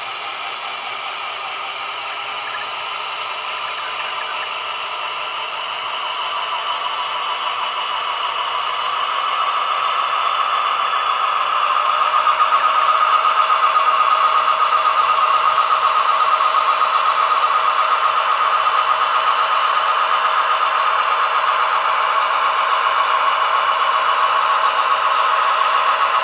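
Model freight train pulled by a model B&O SD-9 diesel locomotive running on layout track: a fine, rapid clatter of small wheels on the rails with a motor whir, growing louder over several seconds as it nears, then steady.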